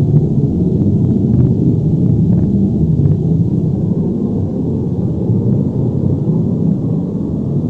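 Earthquake/avalanche rumble sound effect: a continuous deep rumble, steady in level, with a few faint crackles in the first three seconds.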